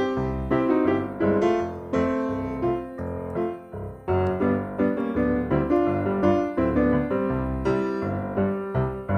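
Background music led by piano or keyboard, with a steady beat.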